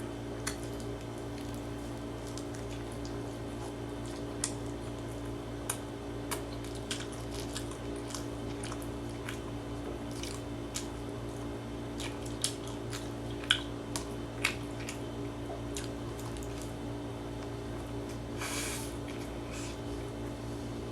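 Close-up mouth sounds of a person chewing a rice ball: soft wet clicks and smacks scattered through the chewing, over a steady low hum. About 18 seconds in there is a brief breathy hiss.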